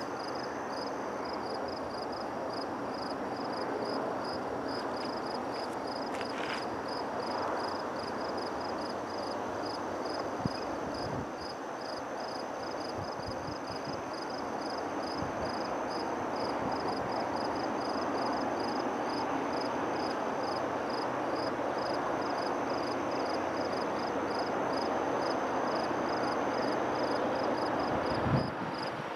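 Distant EMD GP38-2 diesel locomotives running as they approach, a steady rumble that slowly grows louder, under insects chirping in a fast, even pulse. A low thump comes about ten seconds in and another near the end.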